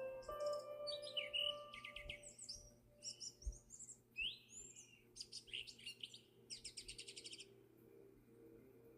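Small birds chirping and twittering in quick, high runs of chirps and trills, stopping about three-quarters of the way through. Soft held musical notes fade out underneath in the first few seconds.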